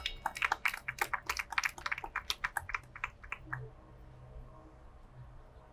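A fast, uneven run of sharp clicks, about eight a second, lasting about three seconds and stopping a little past halfway.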